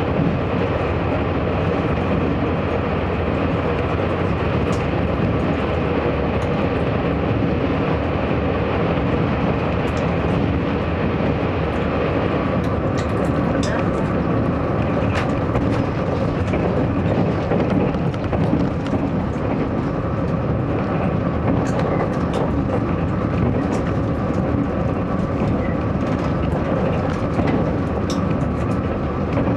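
Inside a Taiwan Railways DR3000 diesel multiple unit running at speed: a steady mix of diesel engine noise and wheels rolling on the rails, with a few faint clicks scattered through it.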